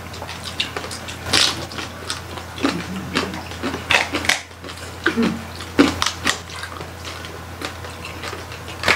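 Close-miked eating of crispy roast pig (lechon): chewing and crunching of crackly skin and meat, heard as irregular short crackles and smacks.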